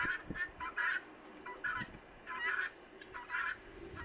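Guineafowl calling: a run of about six short, harsh calls with uneven gaps.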